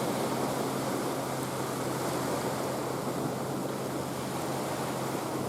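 Steady hum of a passing motorboat's engine over a rushing wash of water.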